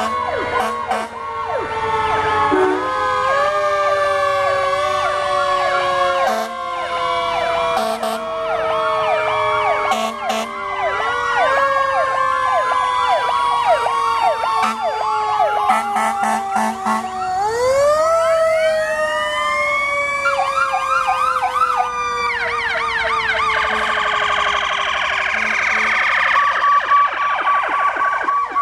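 Fire engine sirens sounding together: several wails overlap, each rising and then slowly falling in pitch, with fast warbling yelps mixed in. Near the end a rapid high yelp gives way to a steady two-tone alternation.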